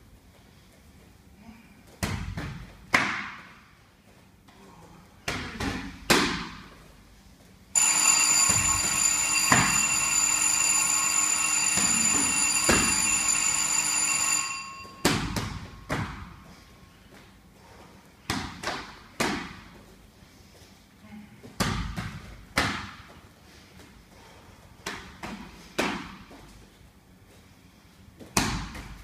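Irregular thuds and slaps of strikes landing in sparring. From about eight seconds in, a loud steady electronic alarm of several pitches, a gym round timer, sounds for about seven seconds and then stops.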